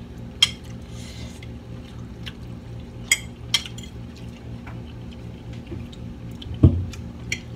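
Metal forks clinking and scraping on ceramic plates, several sharp separate clinks, with one dull low thud a little before the end, over a steady low hum.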